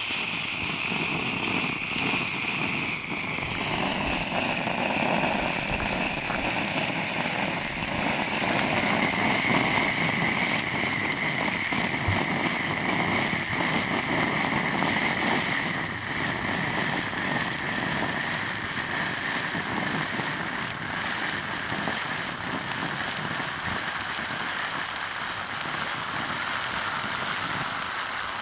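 Three ice fountains (indoor cake sparkler fountains) burning together, giving a steady hiss of spraying sparks with fine crackling throughout.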